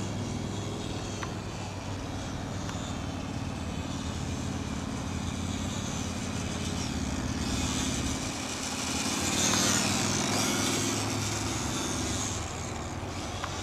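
Two-channel electric RC model airplane's motor and propeller buzzing steadily as it flies, getting louder for a couple of seconds past the middle and then easing off.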